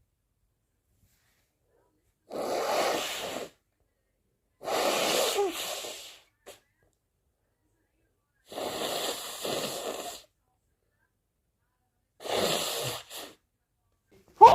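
A person building up to a sneeze: four drawn-out, breathy gasps, each over a second long and a couple of seconds apart. At the very end a sharp, loud sneeze bursts out.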